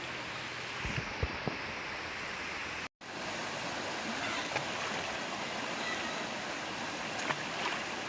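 Steady rushing of a forest stream's running water. It cuts out for a moment about three seconds in, with a few faint knocks.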